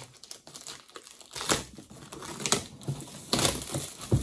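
Plastic shrink-wrap film being torn open and pulled off a cardboard kit box, crinkling and crackling, with several sharp rips about a second apart.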